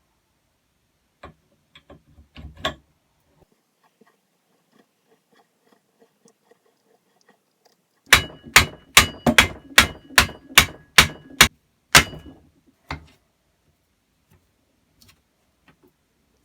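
A few soft knocks, then about ten loud, sharp taps in an even run, roughly two and a half a second, with one more tap a second later.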